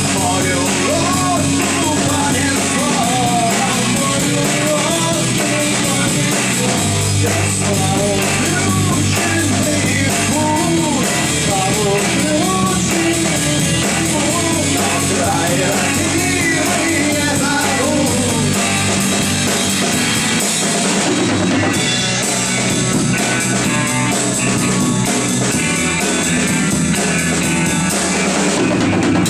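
Rock band playing an instrumental passage between sung verses: drum kit, bass and electric guitar, with a lead line that bends and wavers in pitch over the top.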